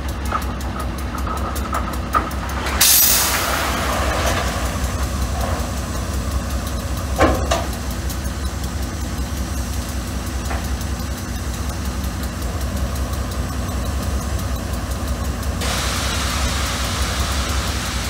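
A GE B36-7 diesel locomotive idles steadily while an air-operated side dump car beside it tips. Its load of broken brick and rock slides off with a sudden loud rush about three seconds in, followed by a single sharp bang near the middle. A steady hiss starts near the end.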